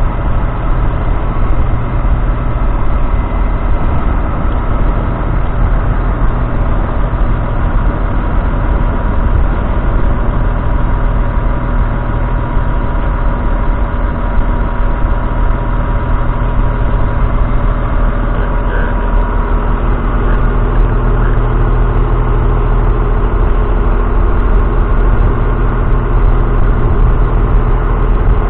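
Claas Axion 830's 6.7-litre six-cylinder diesel engine running at a steady speed with the tractor standing still.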